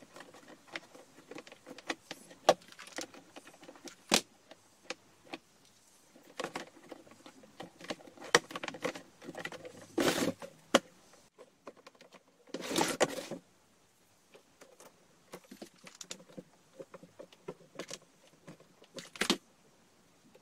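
Hard plastic picnic basket being handled: a string of irregular clicks, taps and knocks of the plastic lid and handle under the hands, with two longer, louder rattles about ten and thirteen seconds in.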